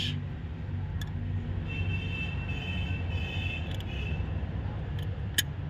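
A steady low motor hum, with a faint high whine in the middle and a few light clicks.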